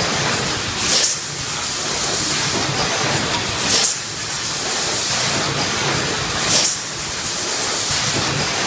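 Keenpro EM08S1 eight-cavity PET stretch blow molding machine running, a steady mechanical din broken three times by a short sharp blast of compressed-air hiss, spaced about 2.8 seconds apart: the moulds venting at the end of each blow cycle.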